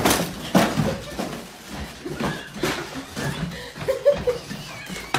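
Boston terrier tearing at a cardboard box: repeated ripping, scraping and rustling of cardboard.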